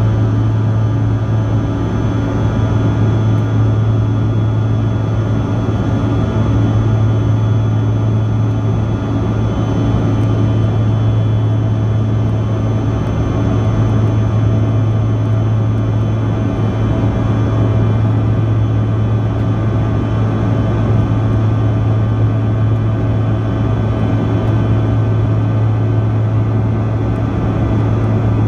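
Bombardier CRJ-200's GE CF34 turbofan engines heard inside the passenger cabin: a loud, steady drone with a layer of constant whining tones, unchanging throughout.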